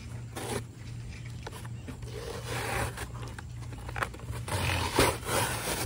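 Packing tape being peeled off a cardboard box in several short, rasping rips, with the cardboard scraping and flexing in the hands between them.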